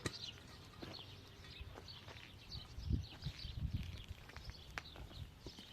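Small birds chirping over and over in short, quick calls, with a few low dull thuds about three to four seconds in.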